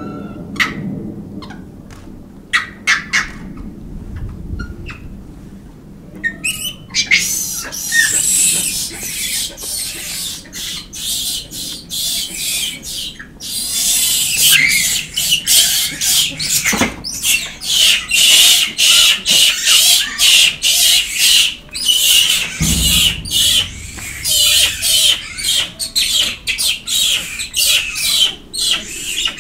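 A troop of Japanese macaques giving short, high-pitched squeals and shrieks. A few scattered calls come at first, then from about a quarter of the way in a dense, almost unbroken run of overlapping calls.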